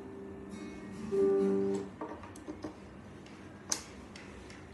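Acoustic guitar being played. A held note rings on, then a louder plucked note about a second in that dies away within a second. A few soft clicks follow, with one sharp click near the end.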